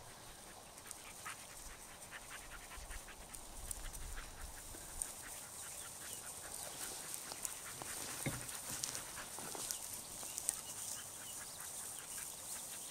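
Norwegian Elkhounds moving about in dry grass: scattered small clicks and rustles, with a dull thump about eight seconds in.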